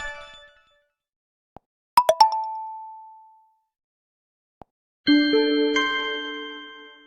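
Short Poco X4 Pro 5G phone alert tones played one after another. A bright two-note ding comes about two seconds in and rings out over about a second and a half. A fuller, chord-like chime comes about five seconds in and rings on, and a faint click falls just before each.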